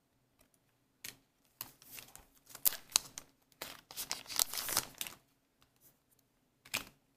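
Trading cards being handled and slid against one another: a run of dry rustling and scraping from about a second in to about five seconds, then one short rustle near the end.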